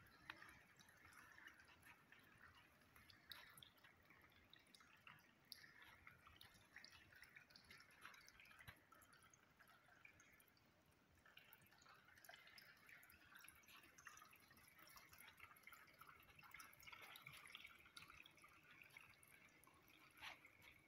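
Faint trickling and dripping water, a light irregular patter of small drops that runs throughout.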